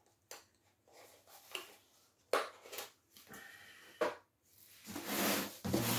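Scattered handling noises from unpacking a box: a few short knocks and rustles of cardboard and packaging as parts are picked up and put down, separated by quiet gaps. Near the end comes a breathy sound with a person's voice.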